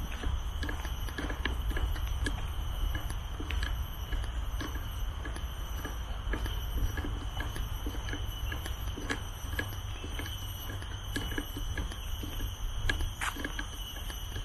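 Footsteps at a steady walking pace, about two a second, over a constant low rumble. Faint steady high-pitched tones sound in the background.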